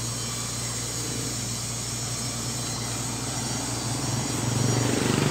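Steady low hum of road traffic. A vehicle grows louder from about four seconds in and cuts off suddenly at the end.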